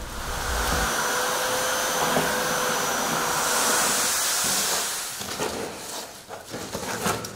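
An electric motor runs with a steady whine and a rush of air, then dies away after about five seconds, leaving a few small knocks.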